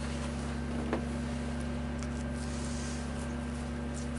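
Steady low electrical-sounding hum with several fixed tones, with a faint click about a second in and a few small ticks as wooden clothespins are handled and clipped onto a raccoon hide on a board stretcher.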